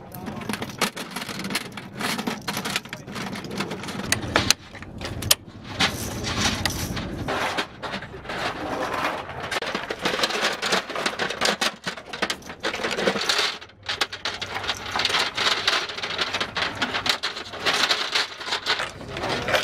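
Linked machine-gun ammunition belts rattling and clinking as they are handled and fed by hand, a dense irregular jingle of metal cartridges and links.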